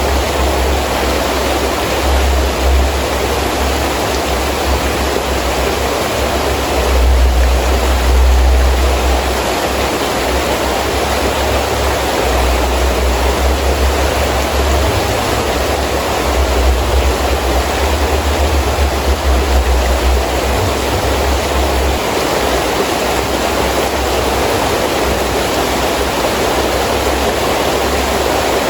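Heavy rain falling steadily as a dense hiss, with a deep wind rumble that swells in gusts, strongest about seven seconds in and again around fifteen to twenty seconds in.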